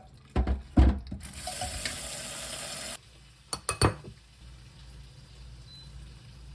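Kitchen tap running for about two seconds and then shut off suddenly, with a few loud clunks of kitchenware before and after it.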